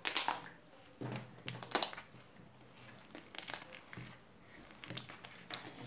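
Slime studded with small plastic pacifier charms and cut drinking-straw pieces being squeezed and popped, making irregular crackly clicks in a few separate clusters.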